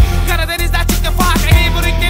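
Hip hop music: a vocal line over deep bass-drum hits that drop in pitch.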